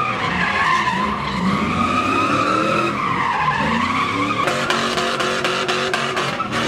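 Tyres squealing without a break as a pickup truck spins donuts, the squeal wavering and dipping in pitch about halfway through. Underneath it the engine revs rise and fall.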